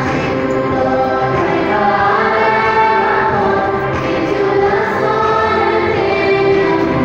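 A choir singing an offertory hymn, with long held notes.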